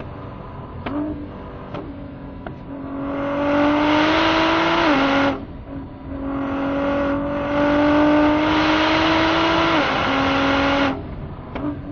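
Ford GT's twin-turbo V6 driven hard on a race lap. It pulls twice under full throttle, the engine note climbing slowly and stepping down at each upshift. Quieter off-throttle stretches at the start and near the end are broken by a few sharp clicks.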